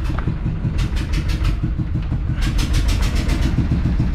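A wooden river boat's engine running at a steady low idle, with a rapid, uneven clatter over the low running sound.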